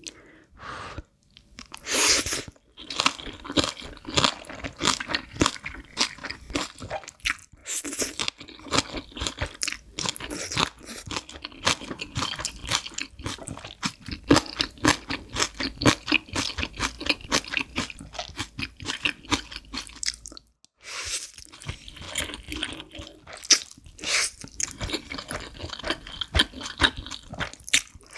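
Close-miked eating of Chapagetti instant black bean noodles: rapid, wet chewing and slurping that goes on without a break, apart from a short pause about three-quarters of the way in.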